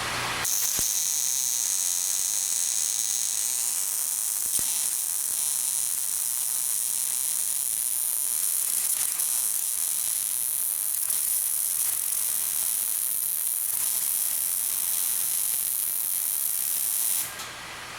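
Handheld gas torch burning with a steady high hiss while it heats a seized bolt in an engine mount to loosen it. The hiss starts just after the beginning, shifts slightly higher a few seconds in, and cuts off suddenly near the end.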